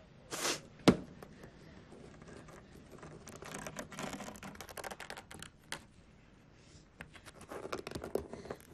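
Fingernails scratching and clicking on a wooden tabletop in short, irregular runs, after a single sharp knock about a second in.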